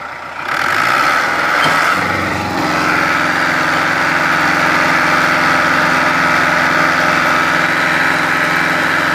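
Fiat 640 tractor's four-cylinder diesel engine revving up about half a second in, climbing in pitch for about two seconds, then held at a steady high speed under the load of a heavy sugarcane trolley.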